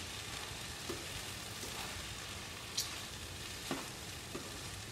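Vegetable fried rice sizzling steadily in a frying pan while a spatula stirs and tosses it, with a few light clicks and scrapes of the spatula against the pan.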